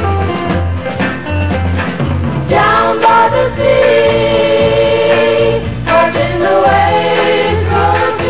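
1964 girl-group pop ballad on record: choir-like vocals holding long notes over a steady plodding bass line.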